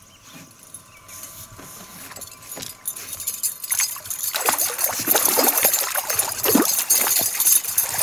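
A large tiger trout thrashing at the water's surface beside the boat as it is brought to the landing net: loud, irregular splashing that starts about four seconds in after a quiet opening.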